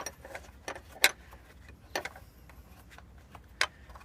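Small metal clicks and clinks of hinge nuts with captive washers being spun off their studs by hand and handled: three sharp separate clicks, about a second in, two seconds in and near the end.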